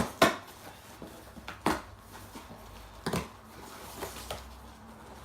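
Handling of a wrapped Christmas present being opened: a few scattered short knocks and rustles of packaging.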